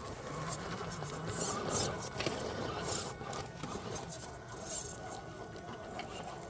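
A radio-controlled rock crawler working over rock: a thin steady whine from its electric drive, with scattered scrapes and clicks of tyres and chassis on the rock.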